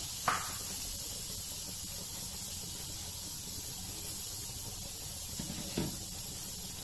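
Cubed potatoes frying in a little oil in a pan on a low flame, a steady soft sizzle, with a couple of brief soft clicks.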